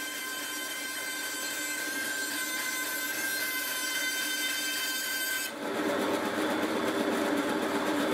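Bandsaw running and cutting a curve in a pine block, a steady whine with a hiss. About two-thirds of the way in the sound abruptly turns lower, coarser and louder.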